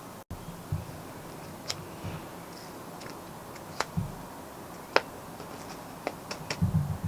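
Small packaged stationery items such as memo pads being handled: scattered sharp clicks and crinkles with a few soft knocks, a cluster of them near the end.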